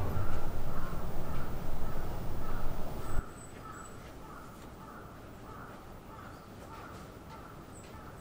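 Outdoor ambience with a low rumble that cuts off about three seconds in, leaving quieter room tone. A short call-like sound repeats about twice a second throughout.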